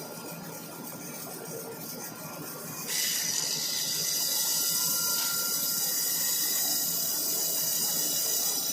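Portable horizontal band sawmill running. About three seconds in, a loud, steady high hiss sets in suddenly and holds, as the band blade cuts into the log.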